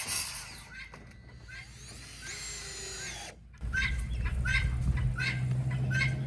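Power drill driving a screw: the motor runs steadily for about two and a half seconds, starting a little past halfway.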